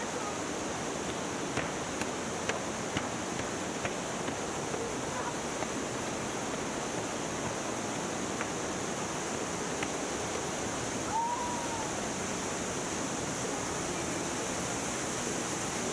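Steady rushing of a mountain stream and waterfall. A few light knocks sound in the first few seconds, and a short rising-and-falling call comes about eleven seconds in.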